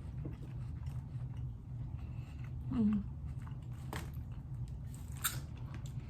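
Someone chewing and crunching baked cheese corn puffs, with a few sharp crunches over a steady low hum, and a brief murmur of voice about three seconds in.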